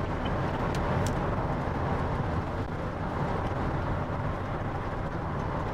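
Steady road and engine noise heard from inside the cabin of a car driving along a highway, with a couple of faint clicks about a second in.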